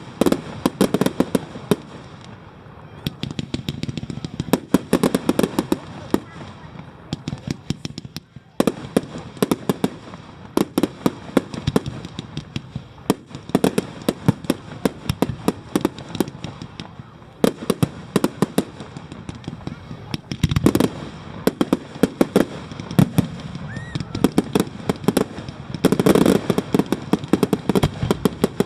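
Fireworks display: a dense, continuous run of sharp crackling pops and bangs, with heavier deeper bursts about two-thirds of the way through and again near the end.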